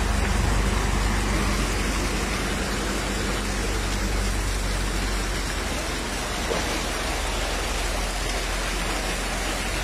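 Heavy rain falling steadily on a flooded street, with drops splashing into standing water. There is a faint low hum under it that stops about four seconds in.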